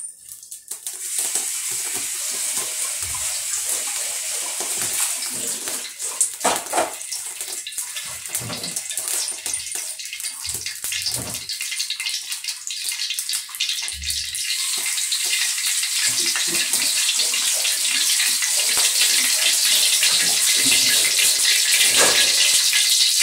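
Cooking oil heating in a wok over a gas flame, hissing and crackling and growing slowly louder as it gets hot. A few soft thumps come along the way.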